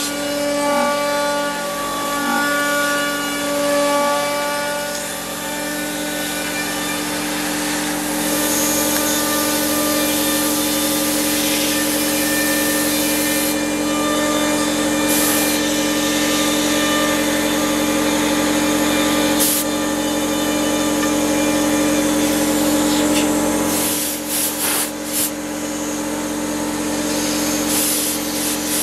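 Ceramic-bearing spindle of a 5.0 Robotics Model 8 CNC router milling 20 mm C250 aluminium plate with an end mill: a steady high spindle whine over the hiss and chatter of the cut. About eight seconds in the cutting gets louder and harsher, and it dips briefly a few seconds before the end.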